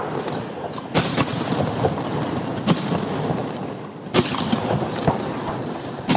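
Fireworks display: four sharp booms of shells bursting, about one and a half seconds apart, over a continuous noisy din.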